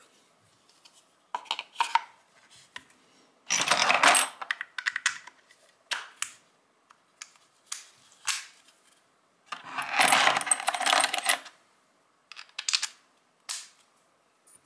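Clicks, clinks and rattling of a pistol grip being fitted onto a steel Stgw. 57 trigger housing by hand, metal parts knocking against each other. Two longer scraping rattles come about four and ten seconds in.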